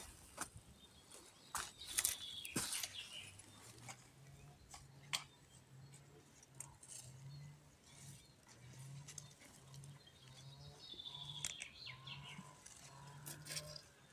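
Outdoor garden sounds: scattered sharp knocks and clicks, short high bird chirps twice, and a faint low pulsing hum that sets in about three seconds in.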